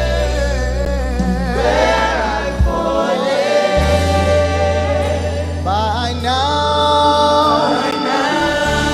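Live gospel music: singers and choir holding long notes with vibrato over sustained low bass notes, which briefly drop out about three seconds in and again near the end.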